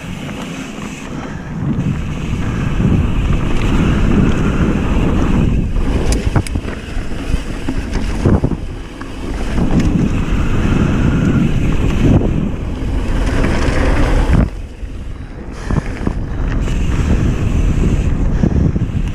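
Wind buffeting the microphone over the rumble of mountain bike tyres on a dirt trail at speed, with a few sharp clacks from bumps. The noise eases briefly about nine seconds in and again around fifteen seconds.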